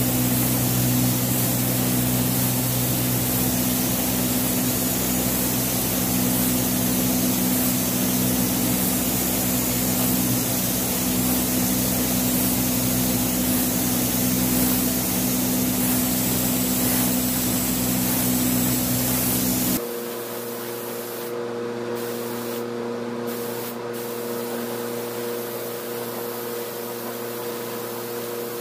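Compressed-air paint spray gun hissing steadily, over a steady low machinery hum. About two-thirds of the way through, the sound drops in level and the hum changes pitch; after that the hiss breaks off briefly three times as the trigger is let go.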